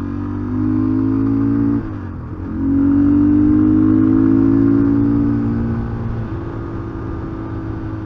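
Rokot Highlander 250 cc enduro motorcycle engine under way, revving up with its pitch climbing. The pitch drops sharply about two seconds in as it changes gear, climbs again, and settles to a steady note after about six seconds.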